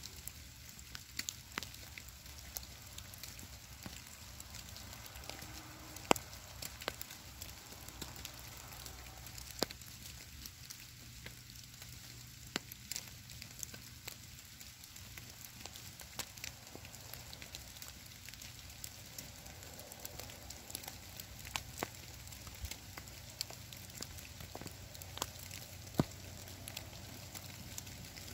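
Wet snowfall landing on a stone boulder and the leaf litter around it: irregular light ticks and taps, dense and uneven, over a steady soft hiss.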